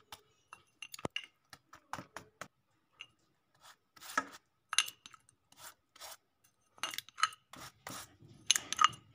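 Silicone pastry brush dabbing and stroking warm syrup onto a soaked sponge cake in its tin: short, irregular brushing and tapping sounds.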